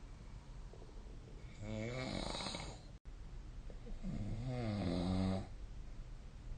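A person snoring in their sleep: two long snores of about a second and a half each, the second one louder.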